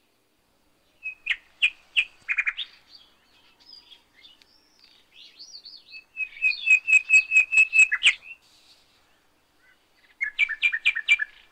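A small bird singing: runs of quick, sharp, repeated chirps about a second in, in the middle and near the end, with thinner warbling notes between them.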